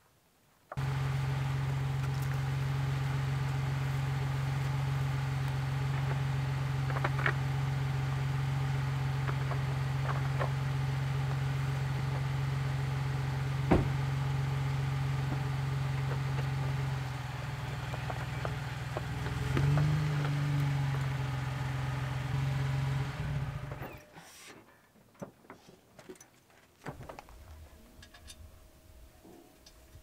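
Jeep Wrangler engine running steadily, with a brief rise in revs about twenty seconds in, then shut off suddenly a few seconds later. A single sharp knock sounds about fourteen seconds in, and faint clicks follow once the engine stops.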